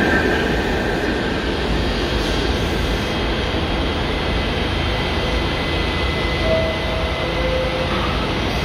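New York City subway train at a station platform: a steady rumble and hum of the train and the underground station, with a short two-note falling chime about six and a half seconds in as the doors close, and the train starting to pull out near the end.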